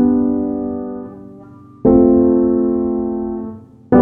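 Background music: slow piano chords, a new one struck about every two seconds and left to ring and fade.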